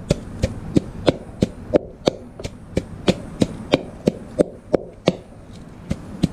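Wooden pestle pounding a coarse paste of dried chilies, garlic and dried fish in a mortar, a steady rhythm of about three thuds a second.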